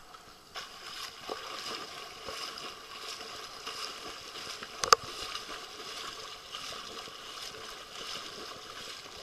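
Water splashing from a swimmer's front-crawl arm strokes and kicks, a steady wash of splashes. A single sharp click about five seconds in.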